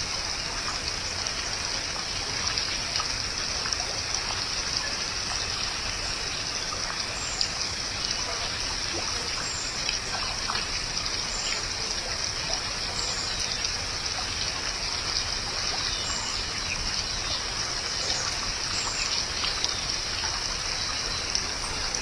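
Steady outdoor background hiss, strongest high up, with faint short high chirps every second or two from about a third of the way in.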